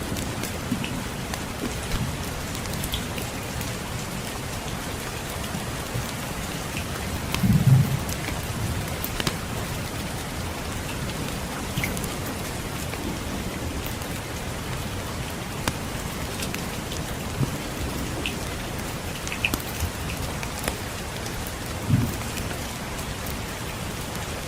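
Steady rain falling, with scattered small crackles and ticks over it. Two brief low thuds or rumbles stand out, one about a third of the way in and one near the end.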